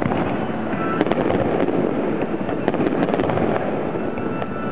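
Fireworks display heard at close range: shells firing and bursting in quick succession over a dense bed of crackling pops, with one loud report about a second in.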